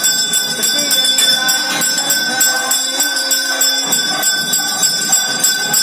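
Temple bell rung rapidly and without a break during the lamp offering (aarti). It gives an even run of several strokes a second over a lasting metallic ring.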